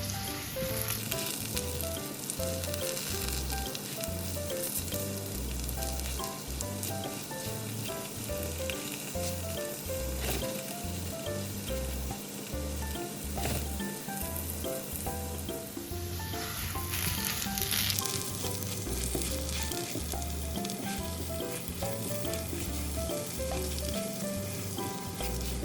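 Chikuwa and potato pieces sizzling as they fry in sesame oil in a frying pan, with a spatula stirring and knocking against the pan now and then.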